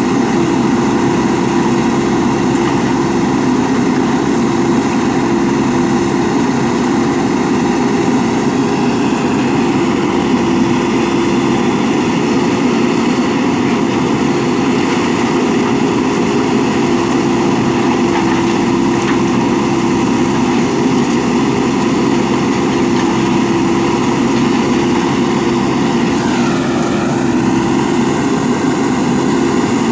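Diesel engine of a JCB 3DX backhoe loader running steadily, a constant drone with no breaks or revving. About 26 seconds in a short higher tone dips and rises again over it.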